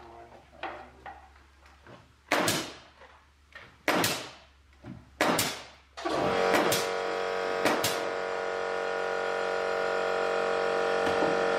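Nail gun firing plastic nails into the diagonal planking of a wooden boat hull: three sharp shots about a second and a half apart, each trailing off. About six seconds in, background music with steady held notes comes in suddenly, with a few more shots under it.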